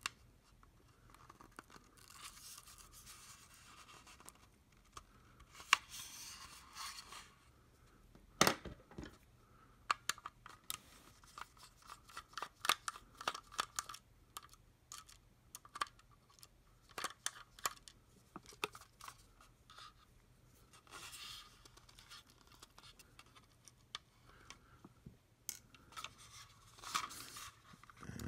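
Small precision screwdriver scraping and clicking against the screws and plastic underside of a Logitech M570 trackball as its case screws are worked out. Spells of scratchy scraping alternate with many sharp little clicks of plastic being handled.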